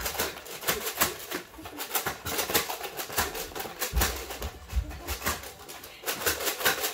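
Nerf blasters firing foam darts: a quick, irregular series of clicks and knocks as darts go off and hit the walls and furniture, with a couple of heavier thumps about halfway through.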